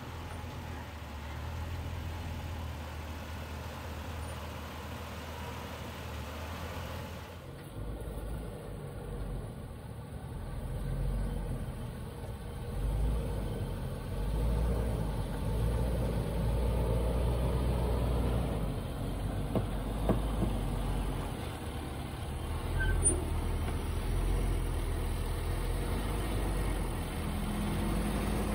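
Land Rover LR4's engine running low and steady on an off-road trail. The sound changes abruptly about a quarter of the way in and grows louder, with two sharp knocks near two-thirds of the way through.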